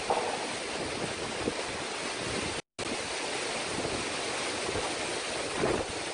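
Cyclone-force wind and heavy rain lashing trees: a steady rushing noise, broken by a brief total dropout a little under three seconds in.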